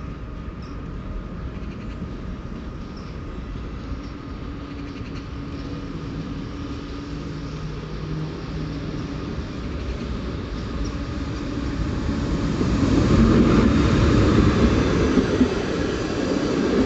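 Electric-locomotive-hauled passenger train approaching and running past along the platform. A low rumble builds slowly, with a steady hum in the middle, then swells into loud rumbling and wheel noise as the locomotive and coaches go by in the last few seconds.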